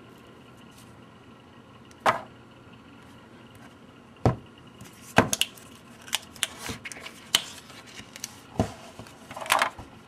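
Rolls of packing tape being handled and compared: scattered sharp knocks and clicks, a first one about two seconds in and a quick run of them in the middle, with a short drawn-out crackle near the end.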